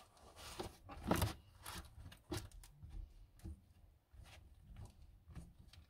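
A rigid WeatherTech sunshade being pressed into a minivan's side window: scattered light knocks and rustles of the shade against the glass and trim, the loudest about a second in.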